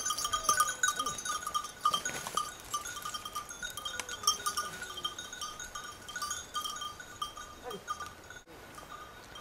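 Bell on a hunting pointer's collar jingling irregularly as the dog runs and quests through the heather and brush. It drops abruptly to a fainter level about eight and a half seconds in.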